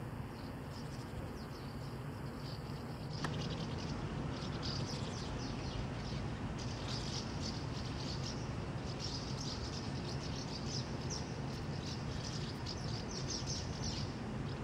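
Small birds chirping in quick, irregular bursts over a steady low outdoor rumble. The chirping grows louder and busier about three seconds in.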